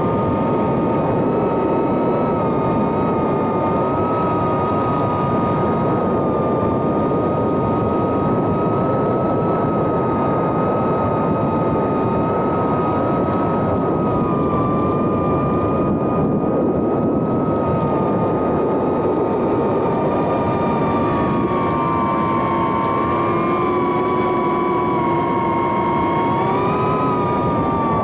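Happymodel 1404 3500kv brushless motors and propellers of a 2.5-inch FPV whoop drone whining in flight: several close steady tones that waver slightly in pitch with throttle, over a constant rushing noise.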